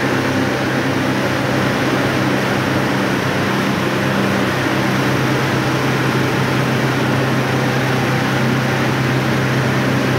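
Sawdust grinding plant running: a steady, loud mechanical hum with a constant rushing whir over it, unchanging throughout.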